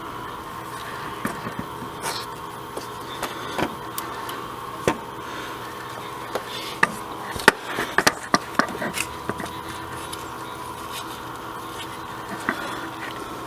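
Scattered light clicks and knocks, most of them about seven to nine seconds in, over a steady hum.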